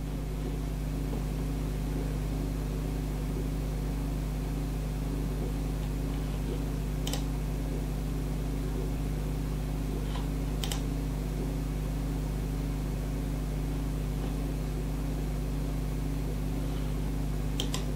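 Steady hum of an old desktop computer's fans and drives, with a few brief mouse clicks near the middle and near the end.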